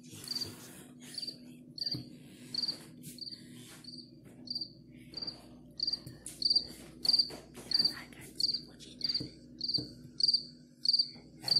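Cricket chirping played back from a phone recording: short pulsed chirps, evenly spaced at about one and a half a second, over a faint steady low hum.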